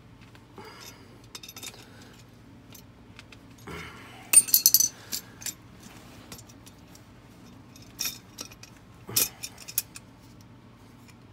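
Crescent wrench and the steel parts of a Duke #3 coil spring foothold trap clinking and rattling as the trap is bent to adjust its pan height. A quick cluster of sharp metal clinks comes about four seconds in, and more clinks come around eight and nine seconds in.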